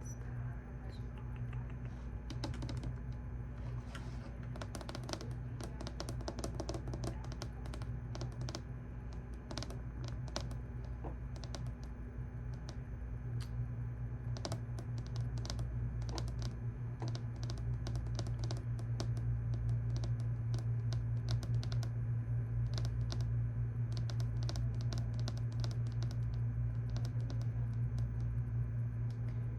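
Typing on a computer keyboard: irregular runs of quick key clicks with short pauses. A steady low hum lies underneath and grows louder a little past halfway.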